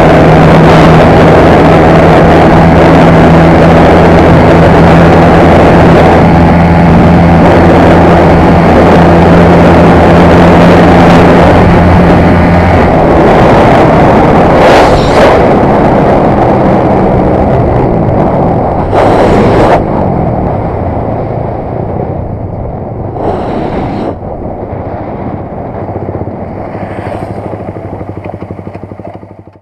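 Suzuki Raider 150's single-cylinder four-stroke engine held near 10,000 rpm at speed, under heavy wind rush over the microphone. About 13 seconds in, the steady engine note breaks off, and the engine and wind noise fade over the last ten seconds as the bike slows.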